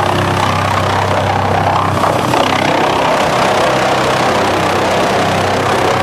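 Drum chipper running with wood going into it: a steady low machine hum under a dense noise of wood being fed and chipped, with a slightly louder crackle about two seconds in.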